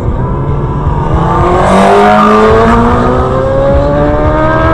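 A car engine accelerating, its pitch rising steadily from about a second in, over a loud low rumble of road and wind noise.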